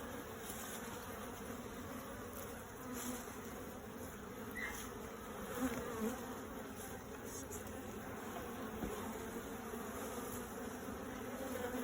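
Many honeybees buzzing around an opened hive, a steady drone.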